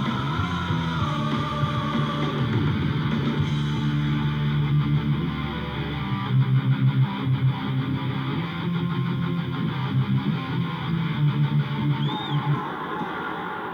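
Hard rock music with electric guitar, played as an ice hockey team's goal song.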